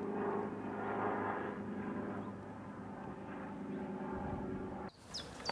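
A steady engine drone holding one pitch, which cuts off abruptly near the end, followed by a couple of short high chirps.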